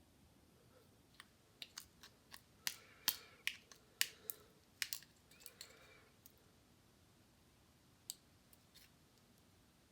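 Small sharp clicks and light scraping as a precision tool pries at the inside of an iPod Nano 5th generation to push a part out: about a dozen irregular clicks in the first six seconds, then two more near the end.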